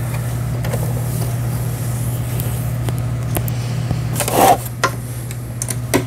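Small clicks and scrapes of hands threading the upper thread through a Toyota Simple 10 sewing machine and its needle threader, with a short rasping scrape a little past four seconds in. A steady low hum runs underneath.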